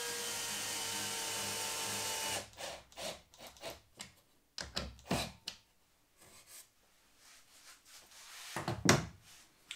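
A cordless drill-driver runs for about two and a half seconds, its pitch sagging slightly as it drives a screw home, followed by a string of short wooden clicks and knocks and a louder knock near the end.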